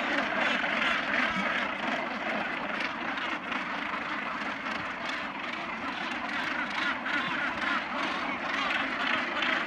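Dense, unbroken chorus of harsh, overlapping calls from a large northern gannet breeding colony.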